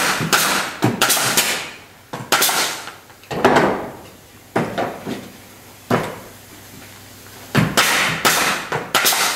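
Pneumatic nail gun firing nails through timber cladding boards into a wooden frame: several sharp shots in quick succession near the start and again near the end, each with a short ringing tail. A few single knocks in between come from handling and placing the next board.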